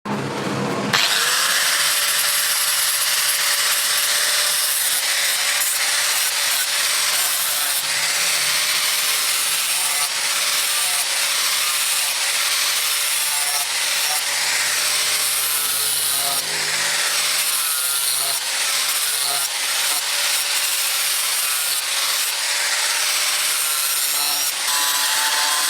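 Power tool working material in a knife-making shop: a continuous rasping, abrasive noise over a faint, slightly wavering motor whine.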